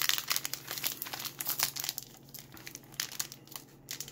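Plastic wrapper of a trading-card pack crinkling as it is torn and peeled open by hand, in irregular crackly bursts.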